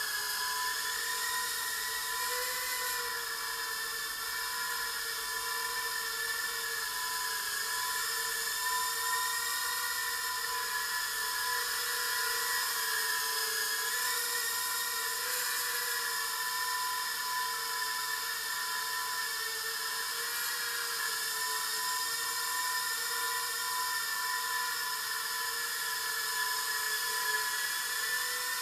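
Eachine Turbine QX70 micro FPV quadcopter in flight: a steady high-pitched whine from its small brushed motors and propellers, the pitch wavering slightly up and down as the throttle changes.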